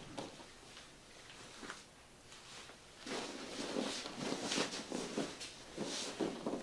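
Rustling and shuffling of clothing and bodies moving, with a few scattered rustles at first and a denser stretch of rustling from about three seconds in.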